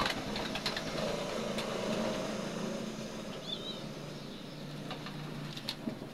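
Steady low hum of an engine running in the background, its pitch stepping down about halfway through. Over it, faint scattered ticks, likely doves pecking grain on gravel, and one brief small-bird chirp about three and a half seconds in.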